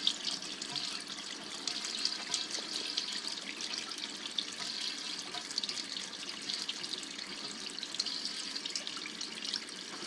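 Water splashing and spraying in a sump pump crock as the raised backup sump pump runs, water jetting from the small air-relief hole drilled against cavitation. The pump kicks on without hesitation and empties the crock.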